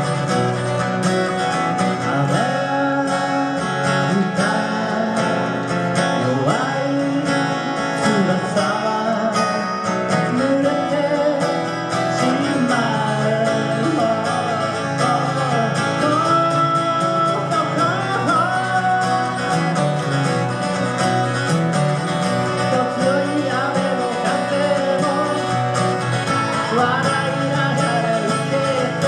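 Two acoustic guitars playing a song together live, with a voice singing the melody over them.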